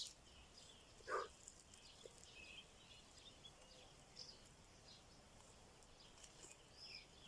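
Near silence with faint, scattered birdsong chirps, and one short louder sound about a second in.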